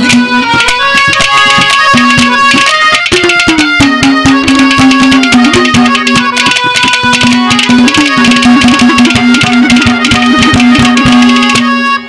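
Instrumental interlude of Haryanvi ragni folk music: quick, steady hand-drum strokes under a long held melody note and a repeated melodic phrase.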